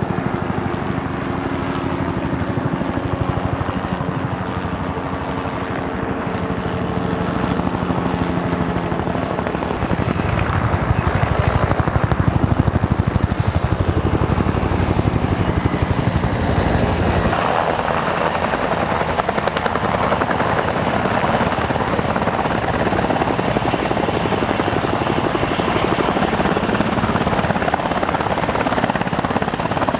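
Turbine helicopters in flight: a steady engine hum and rotor noise, with a faint high turbine whine sliding down in pitch around the middle. A little past halfway the sound changes abruptly to a fuller, denser rotor noise of a helicopter hovering close by.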